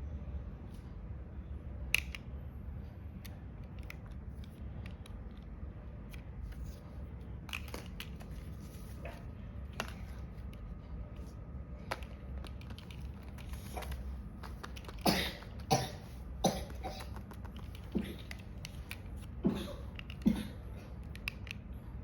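Paper blind bag being handled: scattered soft clicks and crinkles, coming thicker in the second half, over a steady low hum.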